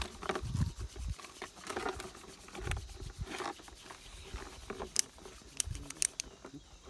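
Small items being handled and rummaged in a plastic box of veterinary supplies: scattered light clicks and clatters, with a few sharper clicks about five to six seconds in, and several dull low bumps.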